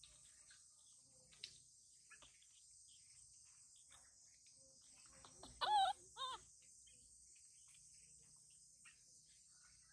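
Steady high chirring of insects, with two short, wavering animal calls in quick succession a little past halfway, much louder than the chirring.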